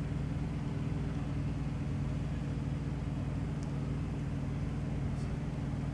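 Vehicle engine running steadily with a constant low hum.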